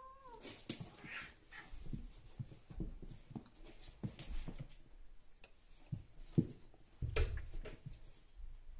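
British Shorthair cats play-fighting: a cat's held cry cuts off just after the start, then irregular scuffling and thumps of paws and bodies on a wooden floor, loudest about seven seconds in.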